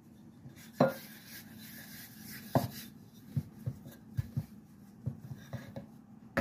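Wooden rolling pin rolling dough out on a floured wooden cutting board, with dull knocks of wood on wood and a scraping rub in the first few seconds.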